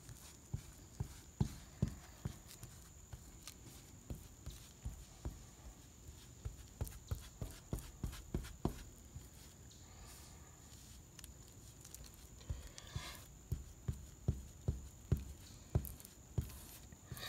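Paintbrush dabbing and working fiberglass resin into fiberglass cloth on a plywood boat deck: irregular soft low taps, a few a second, over a faint steady high tone.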